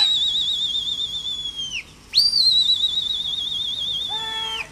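A pigeon flyer's warbling whistles, used to drive a flock of pigeons circling overhead. There are two long, wavering high whistles: the first tails off with a falling pitch a little under two seconds in, and the second begins just after with a quick rise. Near the end comes a short shouted call.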